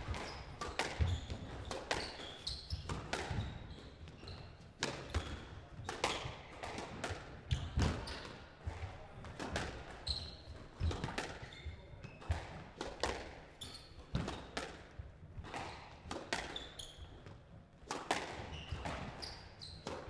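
Squash rally: the rubber ball strikes rackets and the court walls in a quick, irregular run of sharp smacks, with short high squeaks of court shoes on the wooden floor between the shots.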